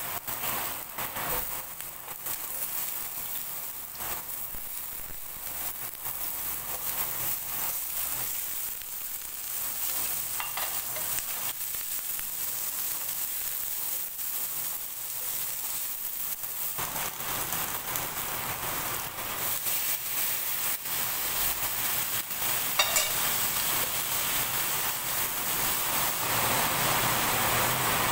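Sliced red onions, garlic and tomatoes sizzling in oil in a nonstick frying pan, stirred with a wooden spatula. The sizzle grows louder in the second half, and there is one sharp tap near the end. Heavy rain keeps up a steady noise in the background.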